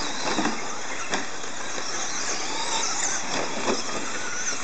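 RC short-course trucks racing on a dirt track, their motors whining in pitches that rise and fall as they speed up and slow down, over steady tyre and dirt noise with a few brief knocks.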